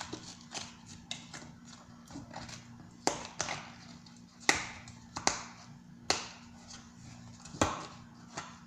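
Irregular sharp taps and clicks from hands working at a baking soda container that won't open, with several louder knocks among them.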